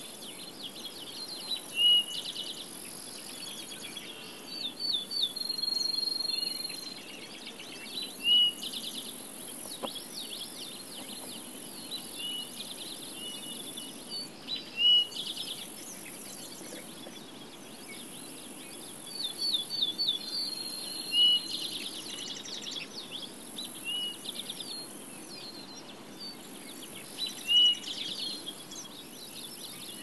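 Summer field ambience of songbirds and insects: several birds singing, one giving a short, loud rising note about every six seconds, over a high steady insect buzz that drops out and returns several times.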